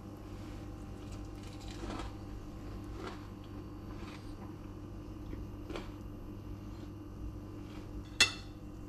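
Metal spoon working a fried egg on a ceramic plate: a few soft scrapes and squishes, then one sharp clink of the spoon against the plate near the end, over a steady low room hum.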